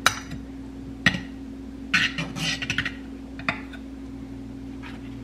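Butter knife scraping and tapping against a nonstick frying pan as butter is spread in it: a few short scrapes about a second apart, with a quick run of them in the middle, over a steady low hum.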